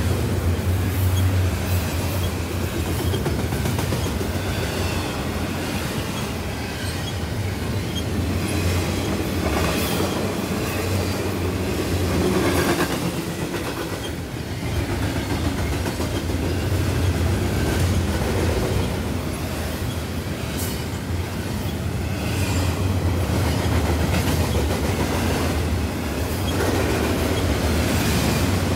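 Double-stack intermodal container freight train rolling past at close range: a steady rumble of the stack cars, with the wheels clicking repeatedly over the rails.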